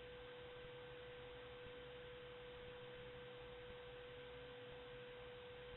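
Near silence: faint room tone with a steady, even hum at one pitch.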